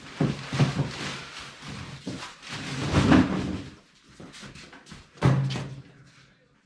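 Knocks, bangs and rustling from an S&S 111 cubic-inch V-twin motor being lifted by hand out of its packing box, with the loudest clatter about three seconds in and another sharp bang near the end.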